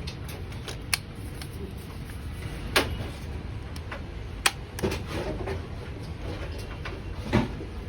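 A handful of sharp, short knocks and clicks, about five spread through, over a steady low hum.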